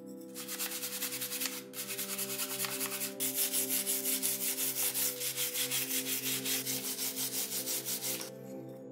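Hand sanding of a rusty metal hinge plate with a sanding block: quick, even back-and-forth strokes, about four a second, with two short breaks near the start, to scrub the rust off.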